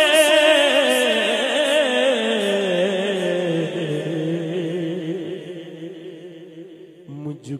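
A man's voice reciting a naat, drawing out one long, wavering note that slides slowly downward in pitch and fades away; a new sung phrase begins near the end.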